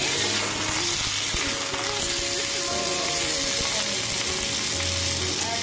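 Cubes of paneer sizzling steadily as they fry in oil in an iron kadai, with background music playing underneath.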